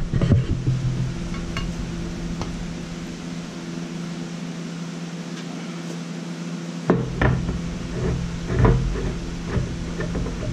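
Metal knocks and clanks from a length of galvanized steel pipe being handled: one sharp knock about seven seconds in, then several lighter knocks. A steady low hum runs underneath.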